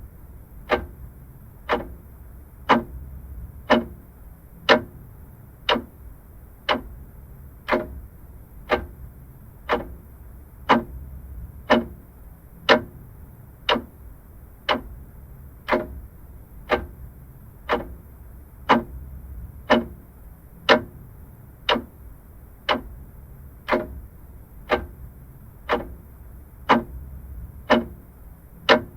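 Vintage mechanical clock ticking steadily, about one tick a second, over a faint low background rumble.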